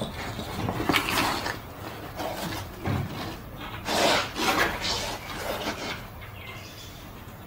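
Scraping and rubbing at the sway bar mount under the truck while the new sway bar bushings are fitted, in several short bouts, quieter after about six seconds.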